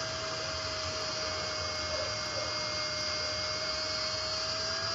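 Television football commentator's long, held goal shout ("goooool") at one steady high pitch over crowd noise; it drops in pitch at the very end.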